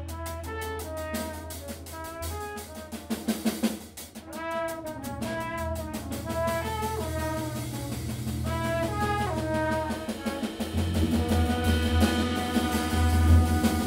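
Live jazz quartet playing: trumpet phrases of short notes over drum kit and bass, with a quick run of rim clicks about three seconds in. Near the end the band grows louder and fuller, the bass coming up strongly.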